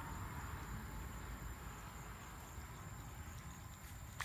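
Faint, steady trilling of insects, a thin high line, over a low rumble.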